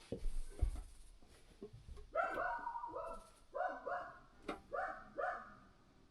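A dog barking: about six short barks, several in quick pairs, preceded by a couple of low thuds.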